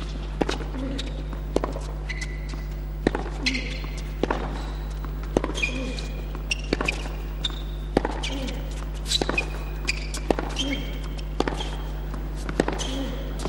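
Tennis rally on a hard court: racket strikes on the ball and ball bounces at a steady back-and-forth pace, with short high shoe squeaks between them.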